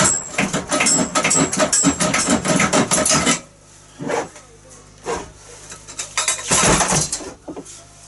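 Clattering, clicking and knocking as a cut-off bicycle frame section is handled and turned in the hands, dense for about three seconds, then a few single knocks and a brief rustle near the end.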